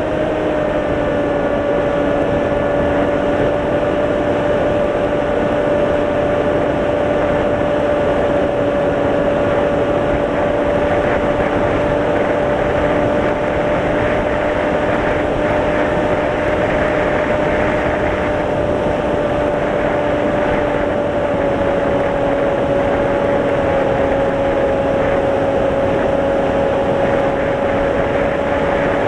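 Electric motor and propeller of a small FPV plane running at steady throttle: a constant hum with slight dips in pitch, over wind rush on the onboard camera's microphone.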